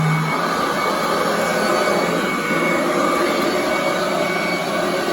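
Royal commercial heavy-duty vacuum cleaner running steadily over carpet: a loud, even motor rush with a low hum and a thin high whine.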